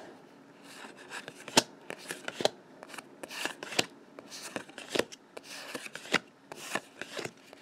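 A stack of Magic: The Gathering cards being flipped through one at a time, each card slid off the front and tucked behind the rest. The cards give soft sliding rustles and irregular sharp flicks about once a second.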